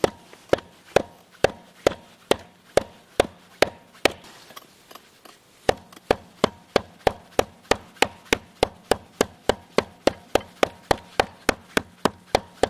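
A knife chopping into small pieces of softwood kindling in a steady run of short, sharp strikes: about two a second, then after a brief pause a faster run of about three a second.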